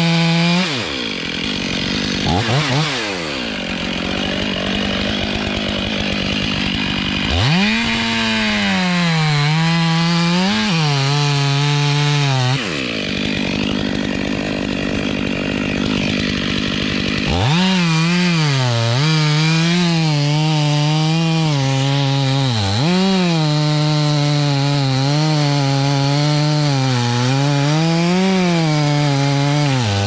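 Gas chainsaw cutting into the maple's trunk at full throttle, its pitch dipping and recovering as the chain bites into the wood. Twice it eases off for a few seconds, then revs back up and cuts again.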